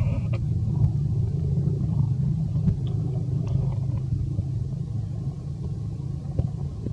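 A steady low rumble, with a few faint ticks over it.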